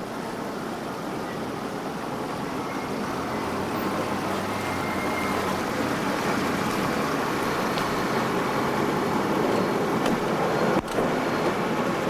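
Steady road and engine noise of a moving limousine, heard from inside the cabin, slowly growing louder, with a brief click and drop in sound about eleven seconds in.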